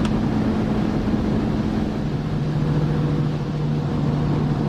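Ford Expedition SUV under way towing a trailer: steady engine and road noise, with the engine's low hum dropping to a lower pitch about two seconds in.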